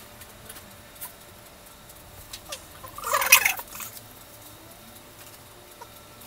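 Quiet room tone, broken about three seconds in by one brief, high-pitched vocal burst from a person, under a second long.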